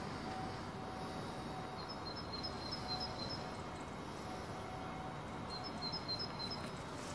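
Steady outdoor background noise, with a bird chirping in two quick runs of short high notes, about two seconds in and again near six seconds.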